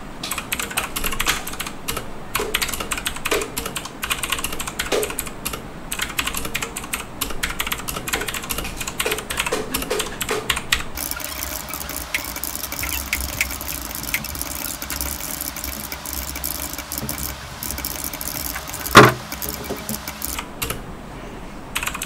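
Fast typing on a Tecware Phantom RGB mechanical keyboard: a continuous run of key clicks that grows denser about halfway through and stops shortly before the end. A short, loud vocal sound breaks in about three-quarters of the way through.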